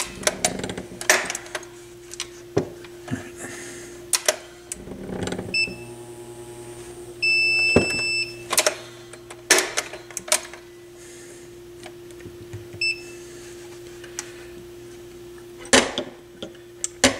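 Clicks and knocks of a wooden turntable plinth being handled and shifted, over a steady electrical hum from the plugged-in turntable. About seven seconds in, a high electronic beep sounds for about a second, with short chirps of the same pitch a little before and again near the end.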